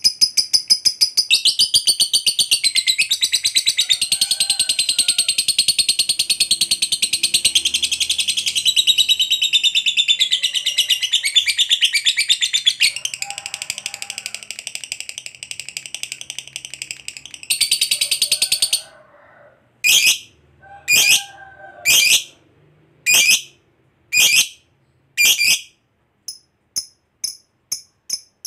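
Masked lovebird chattering in a long, unbroken, rapid shrill trill (the 'ngekek panjang') for about seventeen seconds. It breaks off into a short burst and then six separate sharp calls about a second apart, followed by a few faint ticks near the end.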